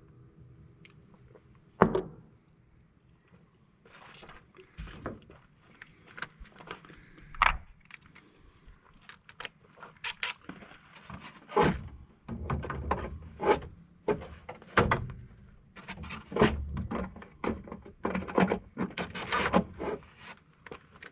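Irregular metal knocks, clanks and scrapes as an air-conditioning unit is taken apart by hand for scrap. A single sharp knock comes about two seconds in, then a busy run of clatter follows.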